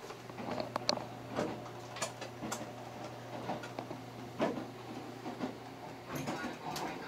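Interior of a JR Kyushu limited express train running: a steady low hum with scattered light clicks, knocks and rattles a few times a second.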